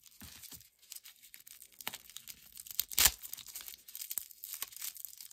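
Clear plastic wrapping crinkling and crackling as it is handled and pulled open by hand, in short irregular rustles with a sharper, louder crackle about three seconds in.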